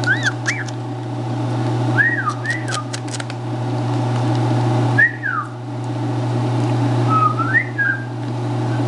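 Emu chicks inside their pipped eggs giving short whistled peeps that rise and fall in pitch, in small groups of one to three every couple of seconds. A steady low hum runs underneath, with a few faint clicks about two to three seconds in.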